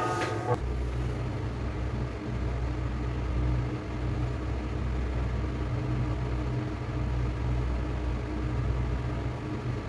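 A steady low hum or rumble from an unseen machine. Before it, the tail of some music stops abruptly about half a second in.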